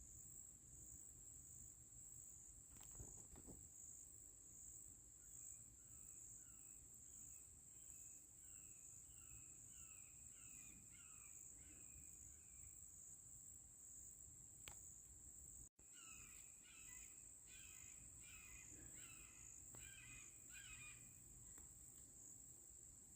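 Steady high-pitched drone of insects, with a bird calling in a run of repeated notes about two a second, from about 5 s to 13 s and again, louder and faster, from about 16 s to 21 s.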